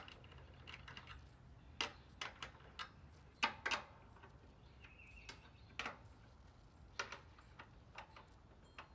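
Scattered metal clicks and clinks of Hyper Tough steel sockets being handled and fitted onto a ratchet, trying sizes on a large bolt. The clicks are irregular and come at uneven gaps, with the loudest cluster about three and a half seconds in.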